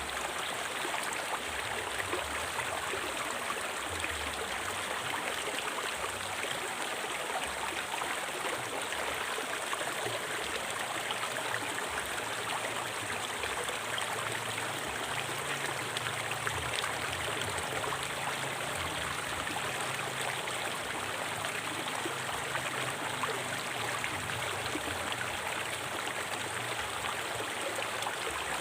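Forest river flowing over rocks: a steady, even rush of water with fine splashing and trickling. A thin steady hiss sits high above it.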